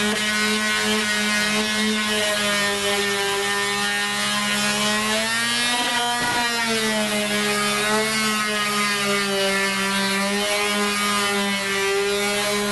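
A power tool's motor running steadily at a high, even pitch, the pitch sagging slightly and recovering about halfway through as if under changing load.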